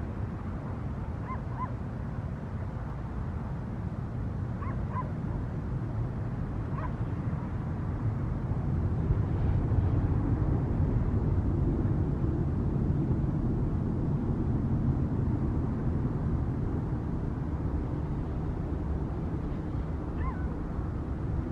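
Airplane engine rumble from a plane passing overhead on its way in to land, swelling to its loudest about halfway through and slowly easing off. A few short faint animal calls come in pairs in the first seconds and once near the end.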